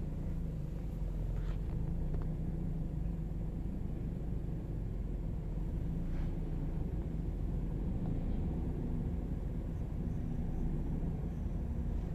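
Scion xB engine idling steadily with a low rumble, in the rough idle it falls into right after the gas tank is filled; the owner suspects a bad EVAP canister purge valve.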